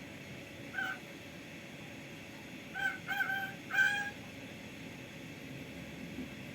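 Javan myna (jalak kebo) imitating a rooster's crow: a single short note about a second in, then a broken crow-like phrase of short notes about three to four seconds in, the last note the longest and loudest.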